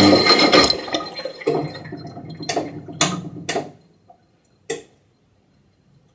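Washing machine running loudly, then cutting out under a second in, its low hum dying away over the next few seconds. Several sharp clicks or knocks follow, about half a second apart with one later, and then it falls quiet.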